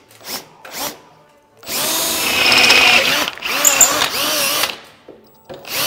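Power drill boring holes through aluminum sheet, in two runs: one of about three seconds starting nearly two seconds in, and another starting near the end, the motor's pitch wavering under load. A few light clicks come before the first run.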